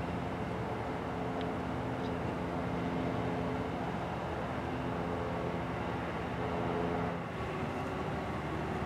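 Steady drone of the diesel engines of a Loram rail grinder train led by an F40PH locomotive, moving slowly up to a grade crossing, with a low even hum under a broad rumble.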